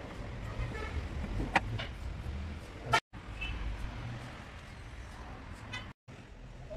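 Steady low background rumble with a few sharp knocks and clinks of hand tools and metal engine parts being handled; the last one, near the end, rings briefly.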